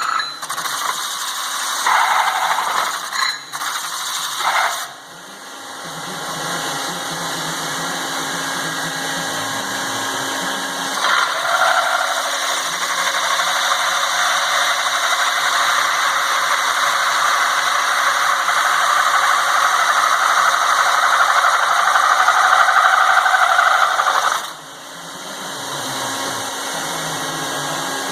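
CNC metal-spinning lathe at work: a steady machine hum with a rasping, scraping noise of the forming tool on the spinning sheet metal. The sound drops away abruptly about five seconds in and again near the end.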